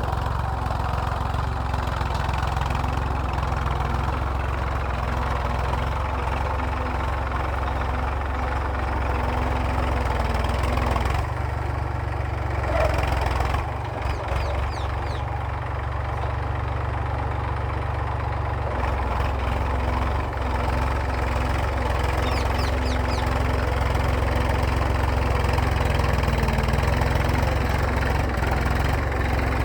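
Massey Ferguson tractor's diesel engine running steadily while ploughing. About eleven seconds in its note shifts and dips slightly for several seconds, then settles back to the steady running sound.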